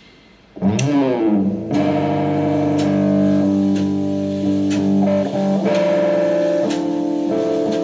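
Solo electric guitar playing slow, sustained notes. It comes in about half a second in with a note sliding down in pitch, then holds notes that change every second or two, with a light tick about once a second.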